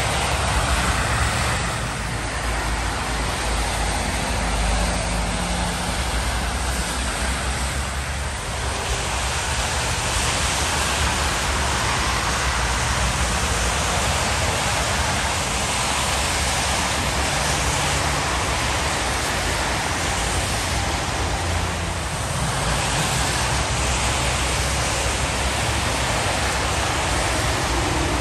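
Motorway traffic on a wet road: a steady hiss of tyres on the soaked surface, with the low rumble of passing lorries and cars underneath.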